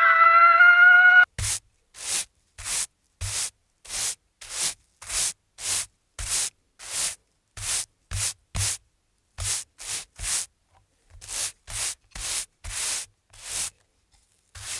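A drawn-out, high held wail that cuts off about a second in, followed by a steady series of short scraping, swishing strokes, roughly three every two seconds.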